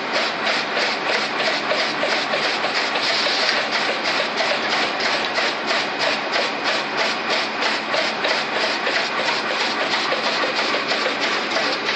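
Automatic plastic cup counting and packing machine running, with a steady rhythmic clatter repeating about three times a second.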